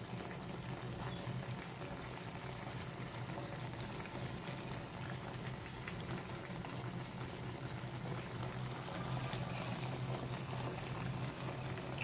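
Pork steak simmering in soy sauce in a frying pan, bubbling steadily, with a low steady hum underneath.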